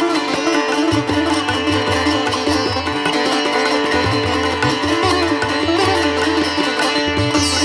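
Instrumental background music: a plucked-string melody over held drone notes, with a steady low beat.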